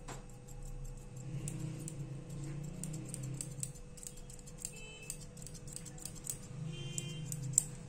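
Grooming scissors snipping a Persian kitten's long fur: a quick, irregular series of light, sharp clicks, with one louder snip near the end.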